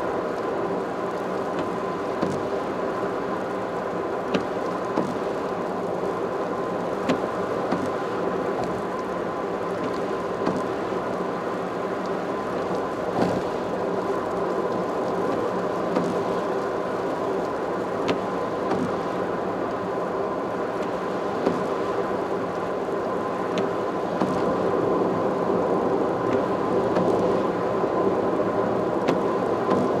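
Car driving at speed on an expressway, heard from inside the car: a steady drone of tyres on the road and engine with a faint steady whine, occasional small ticks, growing a little louder near the end.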